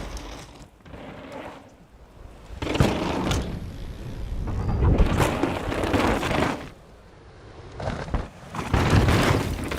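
Downhill mountain bike ridden fast over rough ground: tyre roar, rattling and knocks that swell loud twice, about a third of the way in and again near the end, with a quieter stretch in between.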